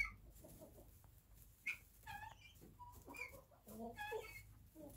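Domestic hens clucking quietly, a few short scattered clucks.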